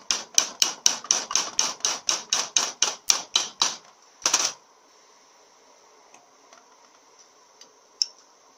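Rapid metal-on-metal tapping, about five taps a second for nearly four seconds, then a short rattle and a few faint ticks near the end. A pin punch is knocking a roll pin out of a Powerglide transmission valve body.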